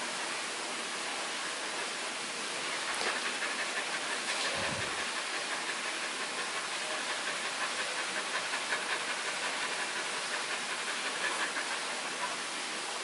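Steady, even hiss of background noise, with a faint click about three seconds in and a soft low thump just before five seconds.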